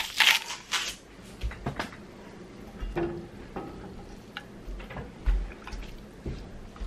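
Salt shaken from a shaker into a pot, rattling for about the first second, then a silicone spoon stirring a chunky beef and vegetable stew in an enamelled Dutch oven, with scattered soft clicks and knocks against the pot.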